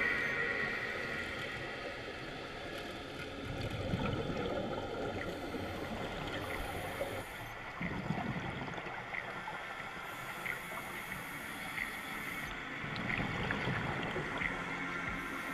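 Muffled underwater noise picked up by a diving camera, with gurgling swells every few seconds and faint regular ticks.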